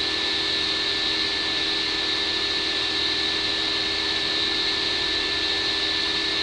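Steady hiss with a faint electrical hum: the recording's constant background noise, with no other sound.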